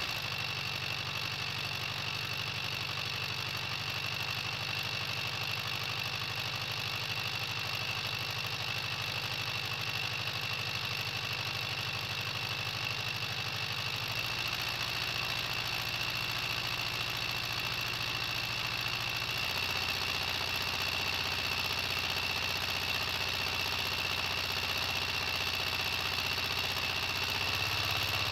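Simulated Detroit Diesel 4-71 two-stroke inline-four diesel idling steadily, with a steady high whine above the engine note. Its low note shifts in pitch a few times, about halfway through, a few seconds later, and again near the end.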